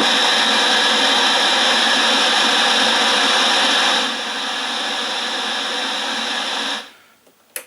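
Static hiss from the speaker of a 1984 Zenith black-and-white TV tuned to an empty UHF channel, a steady loud rush that steps down a little about four seconds in and cuts off suddenly near the end, followed by one sharp click.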